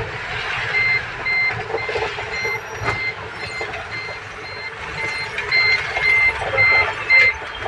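Vehicle reversing alarm beeping, a steady single-pitched beep repeated a little under twice a second as the ambulance backs into a parking spot, over engine and street noise. The beeping starts about a second in and stops just before the end.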